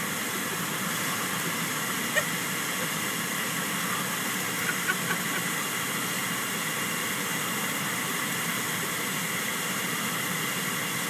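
Steady hiss of air blowing out of a car's dashboard air vent, with a short click about two seconds in.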